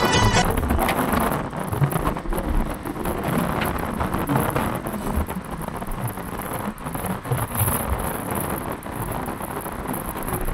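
Steady road and traffic noise heard from inside a moving car's cabin, an even rushing with small irregular knocks, after a snatch of music cuts off about half a second in.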